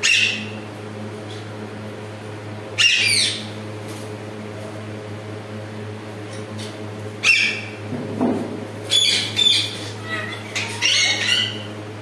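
A caged green parakeet squawking: sharp high calls at the start, about three seconds in and about seven seconds in, then a quick run of several calls near the end. A steady low hum runs underneath.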